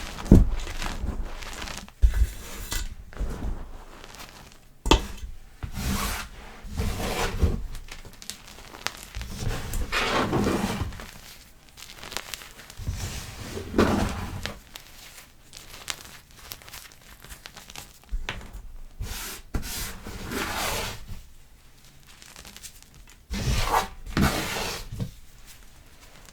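Blocks of gym chalk crushed and crumbled by hand, giving soft crackling and crunching in irregular squeezes, with a sharp tap now and then.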